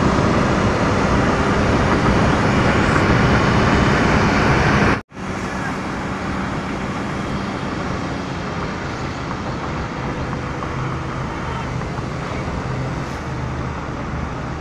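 Steady engine and road noise of a moving car heard from inside its cabin. The sound cuts out for an instant about five seconds in, then goes on a little quieter.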